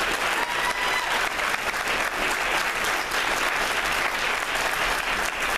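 Audience applauding: many people clapping at once, a dense, steady crackle of claps.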